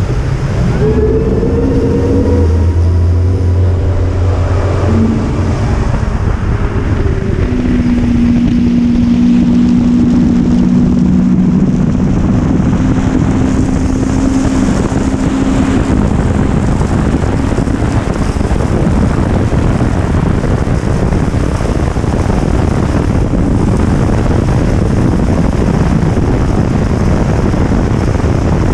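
Mercury Racing 400R outboard on a bass boat accelerating hard from low speed up to high speed: the engine note climbs over the first few seconds, then holds steady. Heavy wind on the microphone and rushing water grow over the engine as the speed builds.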